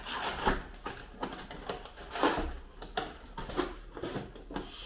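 Cardboard Lego set box being handled and shifted on a tabletop: a few short scrapes and rustles, the loudest about two seconds in.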